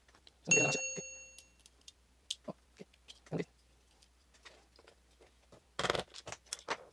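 Small metal parts of a Glock 45 gas blowback pistol being handled while its factory cylinder bulb is taken out of the slide. A sharp metallic clink about half a second in rings on for about a second, followed by scattered light clicks and a quick cluster of clicks and rattles near the end.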